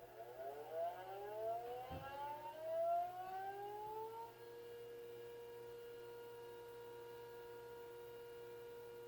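Tornado (civil-defence) siren winding up: several tones rise together in pitch for about four seconds, then hold a steady chord-like wail. A brief knock sounds about two seconds in.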